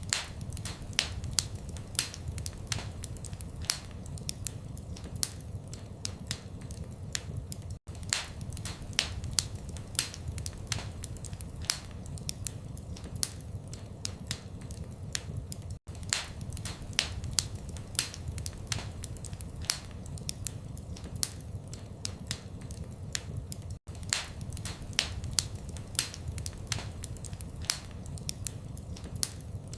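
Fire crackling in a fireplace: a dense run of sharp pops and snaps over a low steady rumble. A momentary gap comes about every eight seconds.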